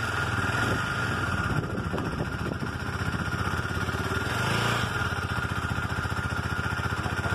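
Husqvarna 401 motorcycle's single-cylinder engine idling steadily, with a short swell in revs about halfway through.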